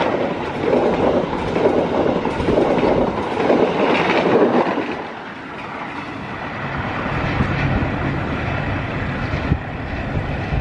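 Mutiara Selatan express passenger train passing at speed close by, its coaches' wheels running loudly over the rails. About five seconds in, the noise drops as the last coach goes by, leaving a lower rumble as the train draws away.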